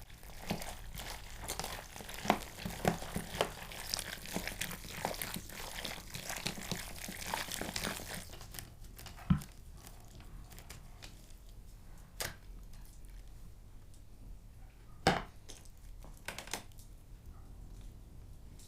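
Hands mixing chunks of raw meat with oil and pickle brine in a bowl: wet, crackly squelching for about eight seconds, then a few separate knocks and taps.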